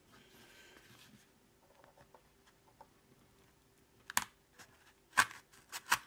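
Knife blade cutting the sticker seal on a small cardboard product box, with the box handled in the hand: faint scraping at first, then a few sharp clicks and taps about four and five seconds in.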